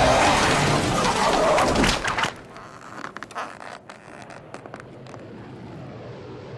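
Cartoon soundtrack: loud music with a rushing whoosh sound effect that cuts off abruptly about two seconds in, followed by a few sharp clicks and faint scraping.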